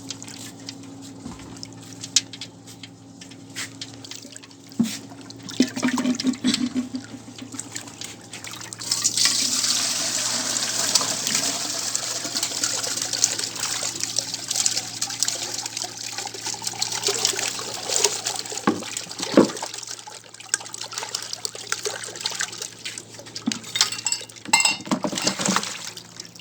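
Water splashing and pouring: scattered drips and small knocks at first, then from about nine seconds in a loud continuous rush of water lasting around nine seconds, followed by a few separate splashes, all over a faint steady low hum.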